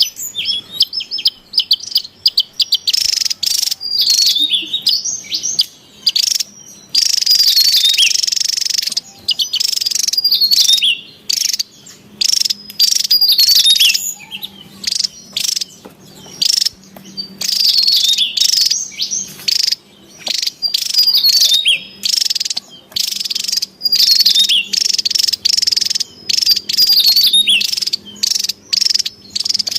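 Javan tesia singing: high-pitched, rapid jumbled notes with quick sliding whistles, in loud bursts of one to three seconds broken by short pauses.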